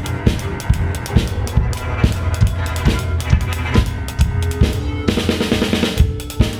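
Music with a steady drum-kit beat, about two strokes a second, over held low bass notes. A dense, buzzy chord swells in about five seconds in and lasts roughly a second.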